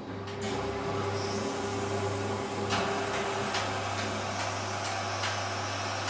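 Philco Ford WE952 front-loading washing machine running its wash, the drum turning the laundry: a steady low motor hum under a wash of noise, with irregular knocks as the wet load tumbles inside the drum.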